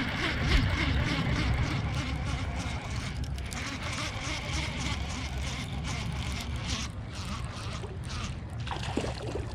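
Hooked freshwater drum being fought and reeled to the boat: fishing reel winding and water splashing over a steady low wind and water rumble.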